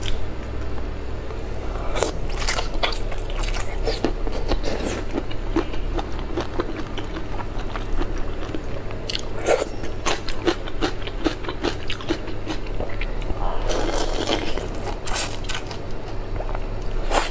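Close-miked crackling and clicking of a soy-marinated shrimp's shell being peeled apart by hand, with wet squishing. Near the end come biting and chewing of the shrimp.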